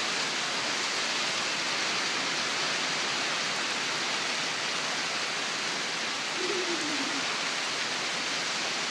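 Heavy rain falling steadily: a dense, even hiss of a downpour.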